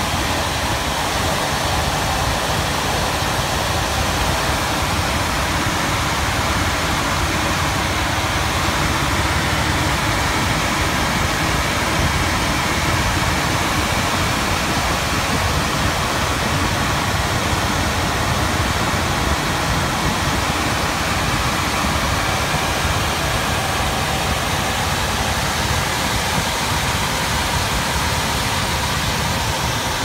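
Heil gas furnace blower, a squirrel-cage fan wheel, running: a steady rush of moving air over a low motor rumble. The blower is failing, turning too slowly to move enough air, which was freezing up the A/C coil.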